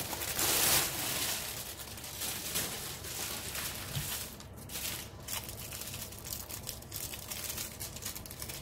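Plastic packaging crinkling and rustling as a bag of small sealed drill bags is tipped out onto a table and the bags are handled, loudest about half a second in.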